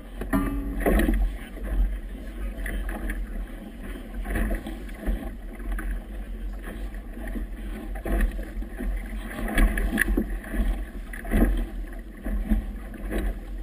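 Strong wind rumbling on a GoPro camera's microphone, with irregular slaps and splashes of choppy water against a boat's hull.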